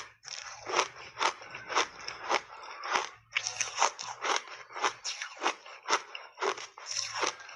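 Close-up chewing of hard ice coated in matcha milk powder: a steady run of sharp, crisp crunches, a little under two a second, as the ice is bitten and crushed between the teeth.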